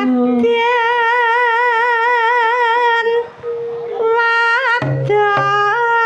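Javanese sindhen (female gamelan singer) singing long held notes with a wide, even vibrato, in karawitan style; the line breaks briefly about three and a half seconds in and again near the end.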